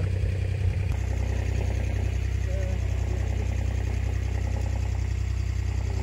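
A vehicle engine idling steadily, low and even, settling into its regular running about a second in.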